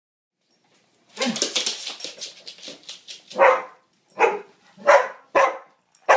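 A large black dog barking. About a second in, a dense, rapid jumble of sound, then five sharp, loud barks roughly every half to three-quarters of a second.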